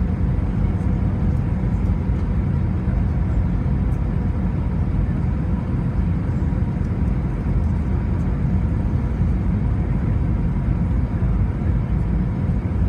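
Steady cabin noise inside an Airbus A320 on approach to landing: an even, deep rumble of engines and rushing air, with faint steady tones running through it.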